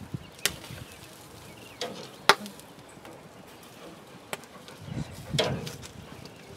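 A few separate sharp clicks and knocks over a faint outdoor background, the loudest a little over two seconds in.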